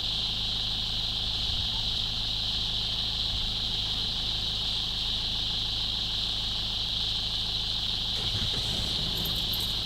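Steady, shrill chorus of insects, high-pitched and unbroken, with a vehicle engine idling low underneath.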